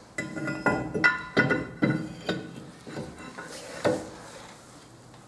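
New rear brake disc clinking and ringing against the steel wheel hub as it is fitted over it: a quick run of metallic knocks with a bell-like ring in the first couple of seconds, then one more knock about four seconds in.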